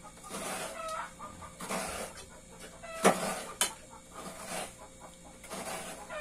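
Coconut half being scraped against the blade of a coconut-grater stool (kudkuran), a scraping stroke roughly every second, with chickens clucking in the background.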